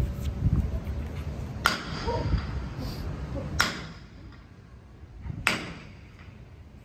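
Three sharp knocks of a mallet on a wooden block held against the cathedral's bronze doors, evenly spaced about two seconds apart: the ceremonial three knocks that begin a bishop's installation.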